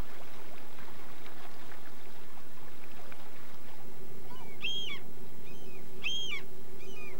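A gull calling in the second half, about four high, arched cries roughly a second apart, over a steady hum.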